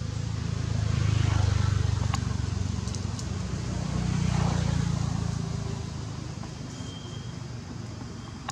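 Low rumble of passing motor traffic that swells and fades twice, loudest about a second and a half in and again about four seconds in.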